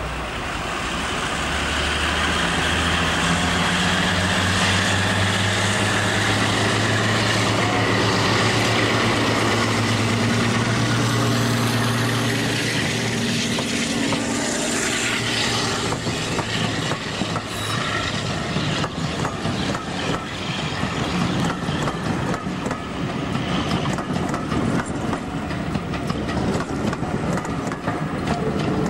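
Class 52 'Western' diesel-hydraulic locomotive D1013 departing under power, its twin Maybach V12 engines giving a steady low engine note. After about fifteen seconds the engine fades and the passing coaches take over, their wheels clicking over the rail joints.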